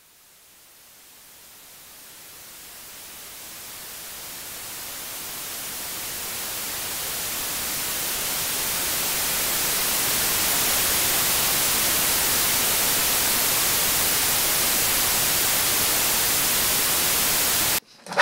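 Static-like white-noise hiss that fades in from silence and grows steadily louder over about ten seconds, holds level, then cuts off abruptly near the end, with a brief sharp sound right at the cut.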